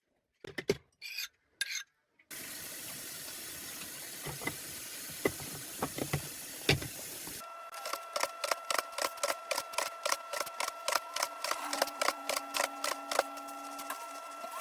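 Tap water running into a sink with dishes knocking now and then, then from about halfway a fast, even tapping, about four taps a second, over a steady hum.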